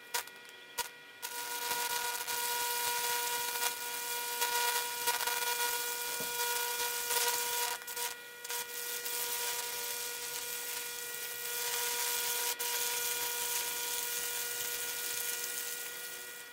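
High-voltage Lichtenberg fractal burn running through electrolyte-soaked poplar: a steady electrical buzz with a hiss, starting about a second in and fading near the end. The current is charring a branching fractal path into the wet wood.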